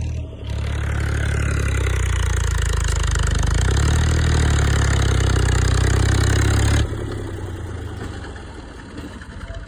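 Farm tractor's diesel engine running hard at steady speed as its front blade pushes soil. About seven seconds in the sound drops suddenly and the engine runs on quieter.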